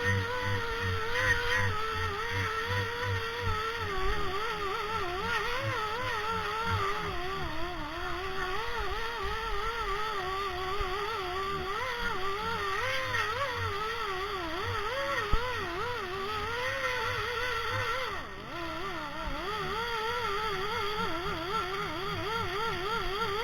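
A small motor running continuously, its pitch wavering up and down throughout, with a single sharp click about fifteen seconds in.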